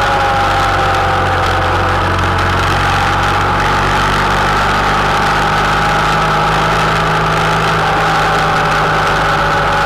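Honda Interceptor 700's V4 engine running at a steady cruise. Its pitch sags slightly through the middle and comes back up a little near the end.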